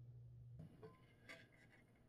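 Near silence: a faint steady low hum that stops about half a second in, then a few faint light ticks.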